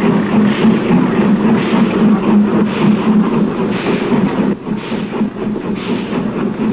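GWR King class four-cylinder 4-6-0 steam locomotive No. 6000 King George V working under steam, its exhaust chuffing in an even rhythm of about one beat a second.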